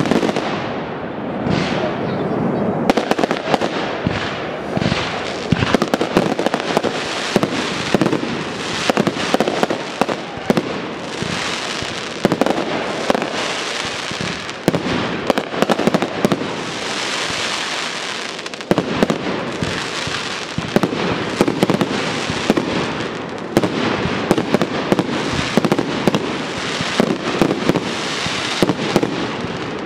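Aerial fireworks display: shells bursting in a dense, continuous barrage, many bangs every second with crackle and hiss between them.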